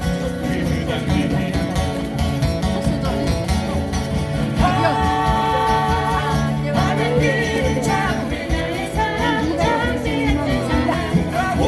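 Live guitar ensemble playing with a singing voice, with a long held note about halfway through.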